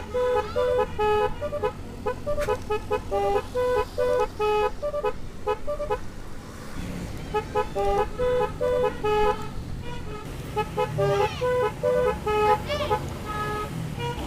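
Telolet-style basuri keong musical horns playing a rapid melody of short, stepping notes, pausing about a second and a half around the middle before playing the tune again. A steady low rumble sits underneath.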